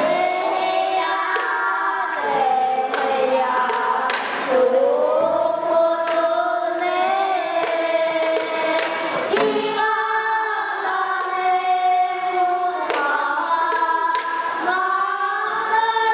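A group of children singing a pansori-style song in unison, holding long notes that slide and bend in pitch, with a sharp stroke on a buk barrel drum now and then.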